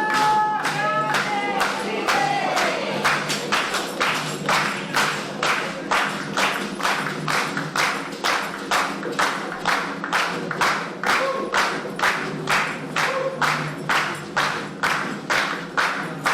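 A group singing a Candomblé chant over a steady percussive beat of about two to three sharp strokes a second. Sung lines stand out clearly in the first two seconds, then the beat dominates.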